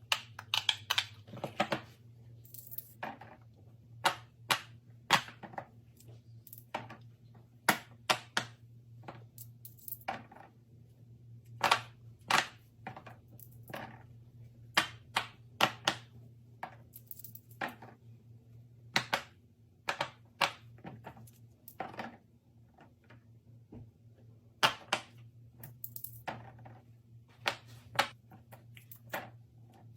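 Plastic fidget toys being handled and played with: sharp, irregular clicks and taps, about one or two a second.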